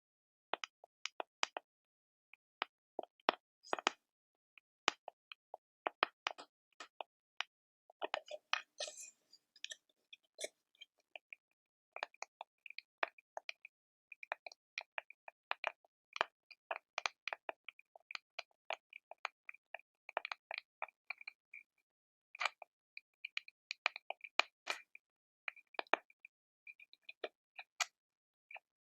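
Quiet, close-up crackling: sparse sharp clicks and pops in quick irregular clusters, with a brief rustle about eight seconds in.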